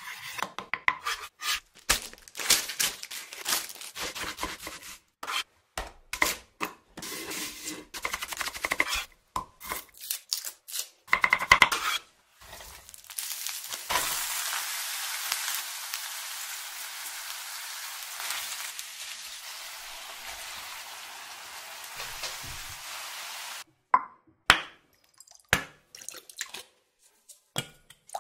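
A knife slicing deep-fried tofu on a wooden board: a quick run of taps and cuts. Then a steady sizzle of tofu and minced meat frying in a pan lasts about ten seconds and cuts off suddenly. Near the end come a few sharp knocks and splashes as seasonings go into a bowl.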